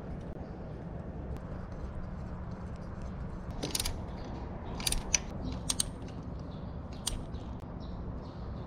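Ratchet wrench clicking in short runs as it turns the bolts of a finned cylinder-head side cover, with a few louder sharp metal clicks toward the middle. A steady low background hum runs underneath.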